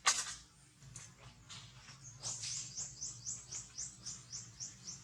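A sharp knock right at the start. From about two seconds in, a bird calls a rapid run of short, high, falling notes, about four a second.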